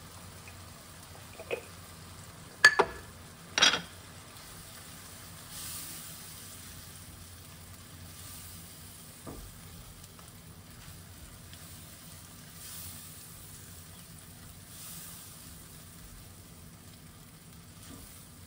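Diced onions, bell peppers and celery frying in butter and oil in a saucepan on high heat, a faint steady sizzle with soft swells. A few sharp knocks stand out, the loudest a close pair just under three seconds in and another about a second later.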